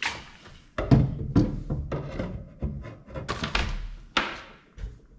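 About half a dozen irregular knocks and thunks as a metal bracket and other loose hardware are handled and set down on a plywood cabinet floor.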